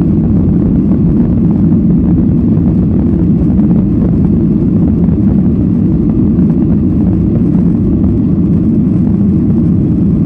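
Steady, loud rumble of airliner cabin noise, engines and airflow heard from inside the cabin at a window seat while the plane taxis.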